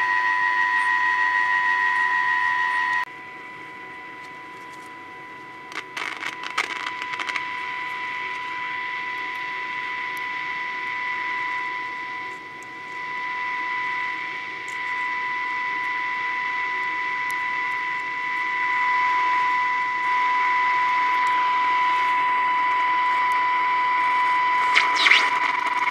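Transistor AM radio under repair sounding through its speaker: a steady high whistle that drops in level and shifts slightly in pitch about three seconds in, with crackles and clicks about six seconds in and again near the end as test leads touch the circuit. The set is unstable after its IF transformer capacitors were replaced.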